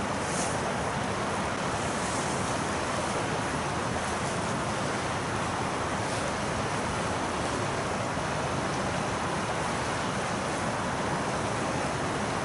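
Steady rush of a flowing river, an even hiss with no breaks.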